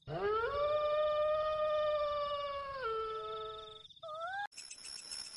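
A long drawn-out howl that rises at the start, holds one steady pitch for a couple of seconds, then drops lower before fading out. A short rising cry follows about four seconds in.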